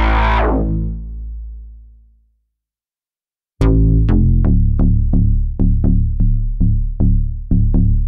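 Dreamsynth DS-1 software synthesizer bass presets. A held low bass sound fades away over about two seconds, and after a second of silence a deep bass preset starts a rhythmic line of short, punchy notes, about two or three a second.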